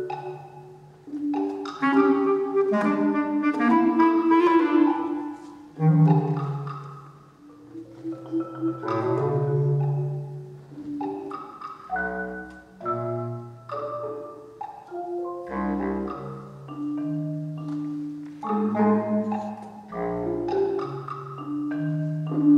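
Bass clarinet holding long low notes under a busy pattern of marimba notes played with mallets. In the second half come three deep drum strokes a few seconds apart.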